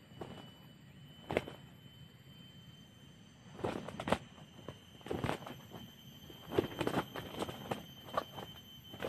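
Irregular short crackling rustles in dry undergrowth, coming in clusters from about three and a half seconds in, over a faint steady high tone.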